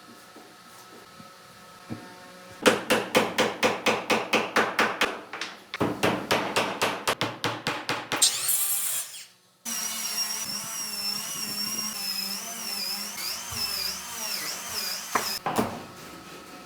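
Rapid hammer blows on wood, about five a second, in two runs; then, after an abrupt break, a power tool's whine running about six seconds with its pitch wavering.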